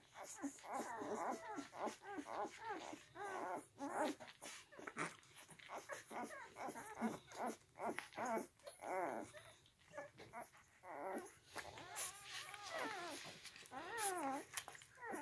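Newborn Central Asian Shepherd (Alabai) puppies nursing. There is a near-continuous chatter of short, high whimpers and squeaks, many rising and falling in pitch, mixed with quick clicking suckling noises.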